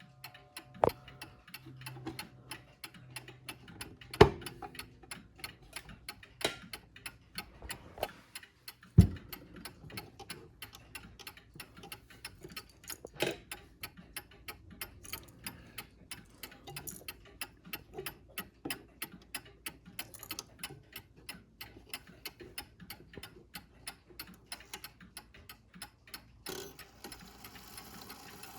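Movement of a British time-and-strike mantel clock ticking steadily and evenly, with a few louder knocks in the first half.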